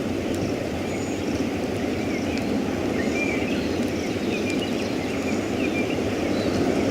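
Steady low rumble of wind, with small birds chirping in short, bending notes, more often from about two seconds in.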